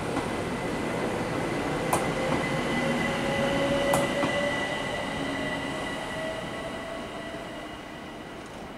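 ÖBB Talent electric multiple unit pulling away and accelerating, its electric drive whining and rising in pitch over a steady high whine, with two sharp clicks from the wheels about two seconds apart. The sound fades as the train moves off.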